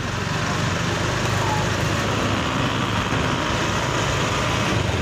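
Motorcycle engine of a tricycle (motorcycle with sidecar) running steadily, heard from inside the sidecar.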